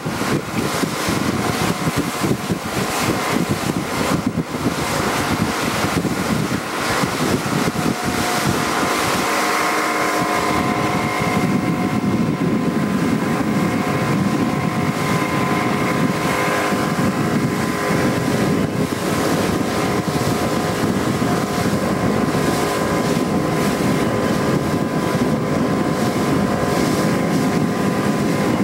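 A boat's engine running steadily under wind buffeting the microphone. The engine's hum comes through more clearly after about ten seconds.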